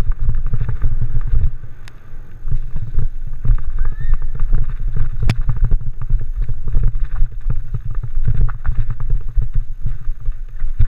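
Norco Torrent mountain bike rolling fast down a dirt singletrack, heard through a handlebar-mounted GoPro: a heavy low rumble of wind and tyre noise with a constant rattle and clack of the bike jolting over roots and rocks.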